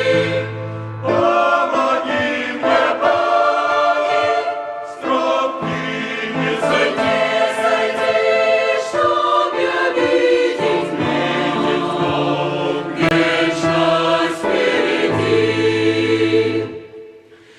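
A song with several voices singing in choir style over sustained low accompaniment notes. The phrases pause briefly a few times, and the sound dips away just before the end.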